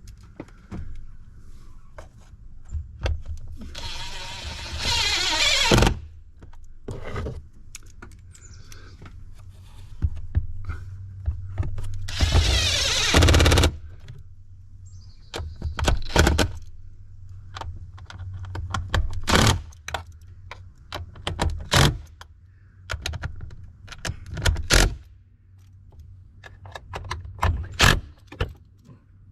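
Small cordless impact driver running in two bursts of about two seconds each, the first falling in pitch, as it drives the 8 mm bolts of the air filter housing back in. Short sharp clicks and knocks of tools and plastic parts come between the bursts.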